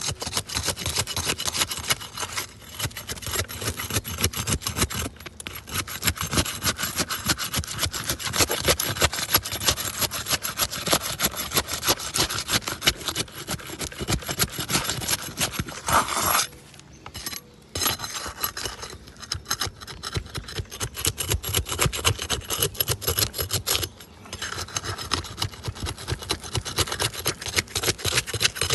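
A flat pry bar being worked under asphalt roof shingles to break them loose for a brittle test: a rapid, continuous scraping and rasping against the gritty shingles. It breaks off briefly about 17 s in and again around 24 s.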